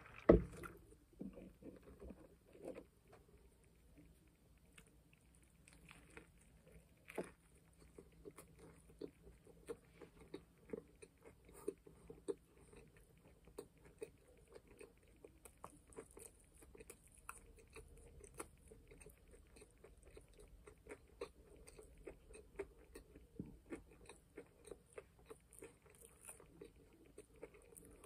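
Wet, irregular chewing and biting of a McDonald's McGangBang (a McChicken sandwich stacked inside a McDouble), with soft clicks and occasional crunches. A single sharp thump comes just after the start.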